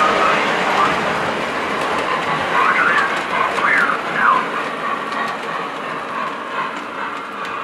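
Electric Railroad Company sound board in a model steam locomotive playing steady steam chuffing through the engine's small speaker while the engine runs on the track. A few short pitched sounds glide up and down about three to four seconds in.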